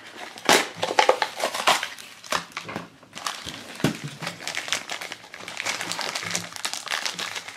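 Crinkling and crackling plastic packaging as a toy blind bag is torn open and handled, with irregular crackles throughout.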